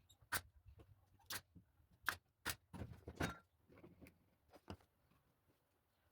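Irregular light knocks and clicks, a dozen or so short sharp hits at no steady rhythm. They are thickest in the first three seconds and thin out toward the end.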